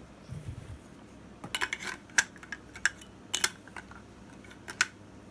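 Metal-on-metal clicks and clinks as the barrels of a Stoeger Condor over-and-under 12-gauge shotgun are handled and fitted back onto the action. A quick cluster of sharp clicks comes about a second and a half in, then a few single clicks.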